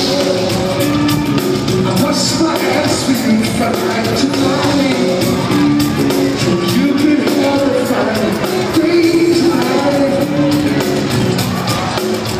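Live R&B band music with a male lead singer singing into a microphone, heard through the echo of a large concert hall from among the audience.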